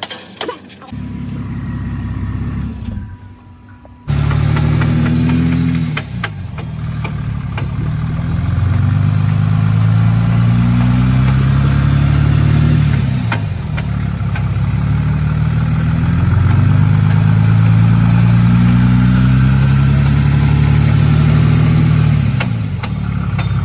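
Car engine running and being revved up and down, its pitch rising and falling in slow swells a few seconds long. A quieter hum comes first, and the level jumps up suddenly about four seconds in.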